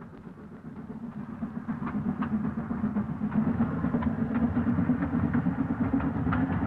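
Steam locomotive hauling an express train at speed, a steady rapid pulsing of exhaust and running gear that grows louder over the first few seconds and then holds.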